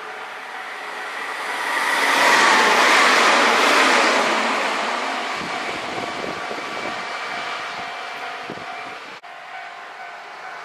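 Passenger train on the Yosan Line passing close by: the running noise swells as it approaches, is loudest about two to four seconds in, then fades as it moves away. The sound breaks off for a moment about nine seconds in.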